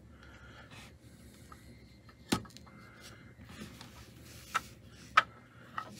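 Hard plastic graded-card slabs being handled, with four sharp clicks: one about two seconds in, and three more over the last second and a half.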